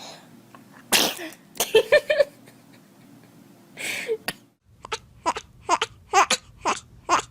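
A baby sneezes sharply about a second in, followed by short voiced sounds like laughter. A second sneeze-like burst comes near four seconds, and near the end comes a quick run of short vocal bursts, about two or three a second.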